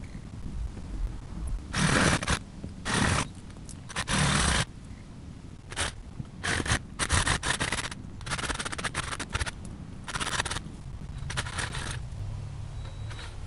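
DeWalt DCS380 cordless reciprocating saw with a 12-inch Diablo wood blade cutting into buckthorn wood in a string of short, harsh bursts with pauses between them, stopping about two seconds before the end.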